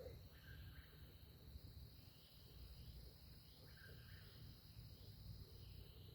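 Faint night insect chorus: a steady high trill with short chirps repeating about once a second, over a low rumble.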